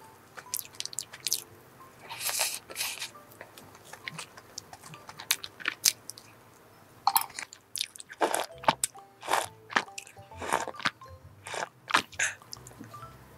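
Close-miked eating of chocolate cake covered in chocolate shavings: a fork cutting into the cake on a plate, then crunchy, wet chewing in short bursts and clicks. Near the end, a sip of hot coffee.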